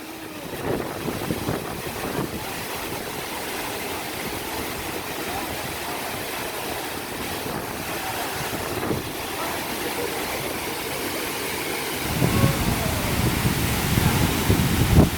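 Waterfall's steady rush of falling water, with wind buffeting the microphone in low gusts for the last few seconds.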